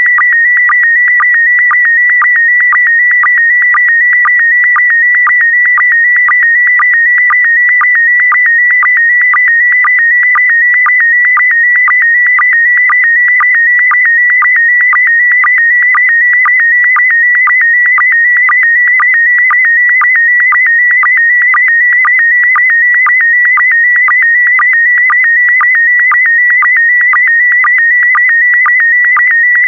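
PD120 slow-scan television (SSTV) image signal: a continuous warbling electronic tone that wavers around a high pitch as it carries the picture's brightness and colour. It is broken by a short lower-pitched sync blip at the start of each scan line, about twice a second.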